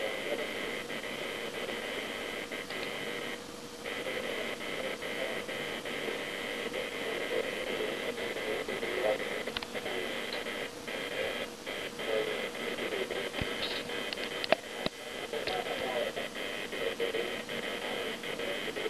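Electric hair clipper buzzing steadily as it shaves a head down close.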